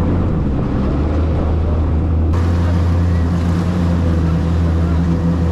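Jet ski engine running steadily at speed, a low drone, with the rush of water spray and wind against the hull.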